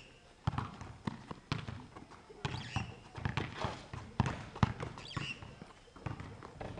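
Basketball being dribbled on an outdoor hard court: a string of sharp, uneven bounces, roughly one to two a second.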